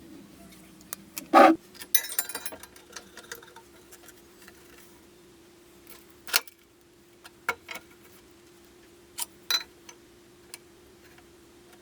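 Scattered sharp clicks and knocks, with a short rattle about two seconds in, over a faint steady hum.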